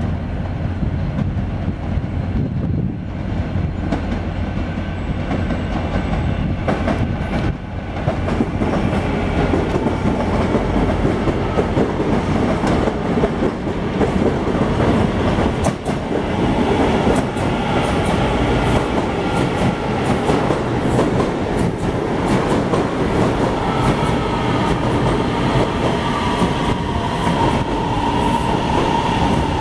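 CSR Zhuzhou electric multiple unit pulling into the station alongside the platform: a steady rolling rumble with wheels clattering over rail joints, growing louder about eight seconds in as it nears. Near the end a whine falls in pitch as the train brakes to a stop.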